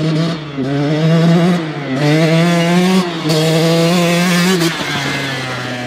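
KTM 125 SX two-stroke motocross bike pulling up through the gears. The engine note climbs, falls back at each shift and climbs again, about four times, then settles lower and quieter near the end.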